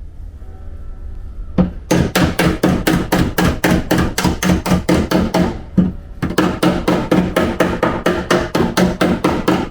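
Body hammer rapidly striking a steel car body panel, about five blows a second with a short pause near the middle. This is panel beating to straighten collision damage.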